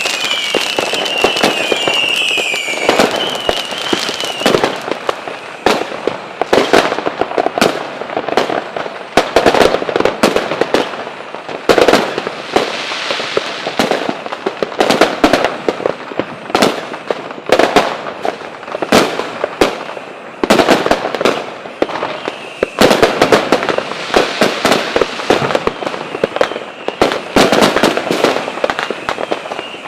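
Fireworks going off: a dense run of sharp bangs and crackling, some in quick clusters. A high whistle repeatedly rising in pitch runs through the first few seconds.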